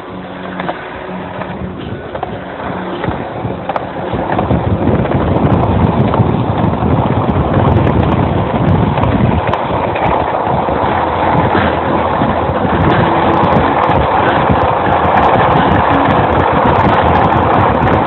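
Rushing noise of wind over the microphone and rolling along the road while being towed behind a car. It grows louder over the first few seconds as speed builds, then holds steady and loud.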